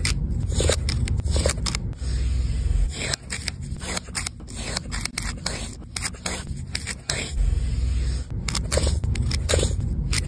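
Spatula scraping and scooping a thick whipped body scrub in glass jars: a dense run of crackly scrapes and clicks over a low rumble.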